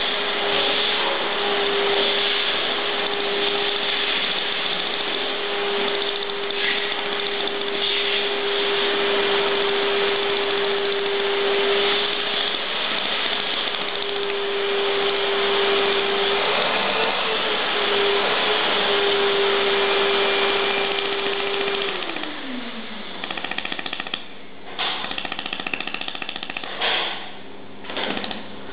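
Handheld fiber laser welder working stainless steel, a dense rapid buzzing hiss with a steady hum under it. Near the end the hum slides down in pitch and the sound breaks into short bursts with gaps.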